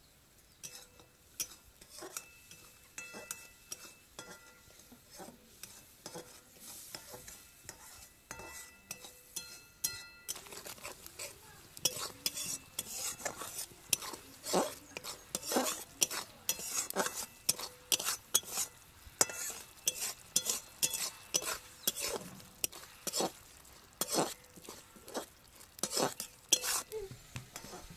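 Steel spatula stirring and scraping a thick curry around a metal kadai, in repeated short strokes that come faster and louder from about halfway through.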